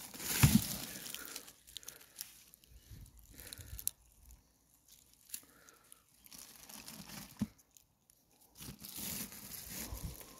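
Footsteps crunching and rustling through grass over stony ground, uneven, with a couple of short quiet stretches. A loud thump about half a second in.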